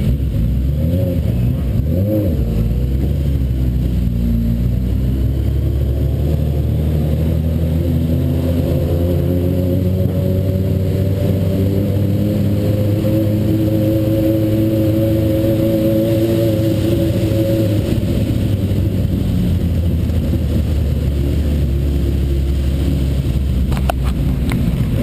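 Suzuki Bandit 1200's inline-four engine running at fairly low revs, its note slowly dipping and rising again.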